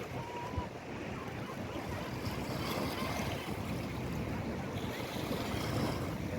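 Steady waterfront noise: water washing against the pier and wind on the microphone, over a low rumble.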